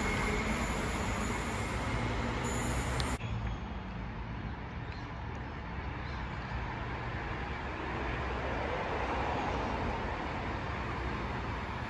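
Queensland Rail electric multiple-unit train pulling away, its motors and wheels humming on the track; the sound cuts off abruptly about three seconds in. After that a steady low rumble of a distant approaching train, growing a little louder in the second half.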